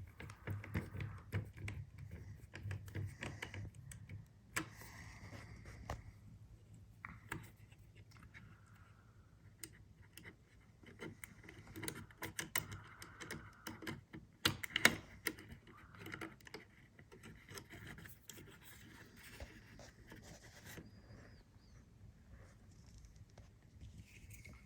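Small scratches, rubs and clicks of a screwdriver and a jumper wire being worked under the terminal screws of a doorbell chime, with one sharper click about fifteen seconds in.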